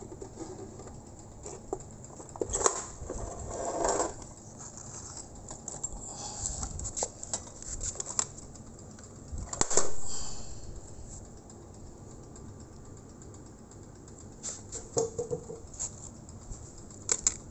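Handling noise: scattered clicks and taps, a rustle about three seconds in, and one louder knock about ten seconds in that rings out briefly.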